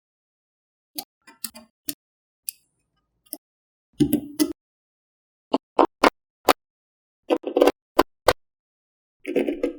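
Small magnetic balls clicking as they snap onto one another, in sharp irregular clicks. Short clattering runs of several balls come about four seconds in, again past seven seconds, and near the end.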